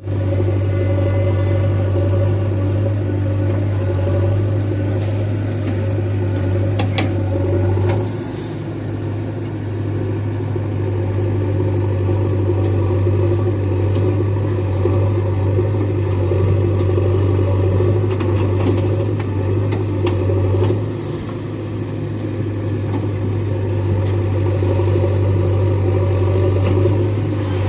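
Heavy diesel engine of farm or earthmoving machinery running steadily with a deep hum, dropping in loudness for a moment about 8 seconds in and again about 21 seconds in.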